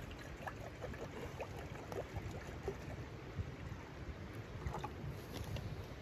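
Water pouring from a plastic bottle into a steel frying pan, splashing and gurgling mostly in the first half, over a steady low rumble.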